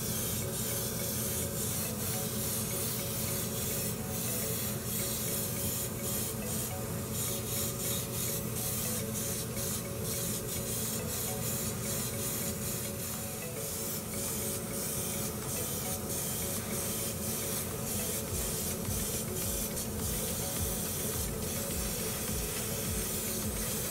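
Gravity-feed airbrush spraying white surfacer primer and gloss black paint onto small plastic model parts: a hiss of air and atomised paint that comes and goes in short pulses as the trigger is worked, over a steady low hum.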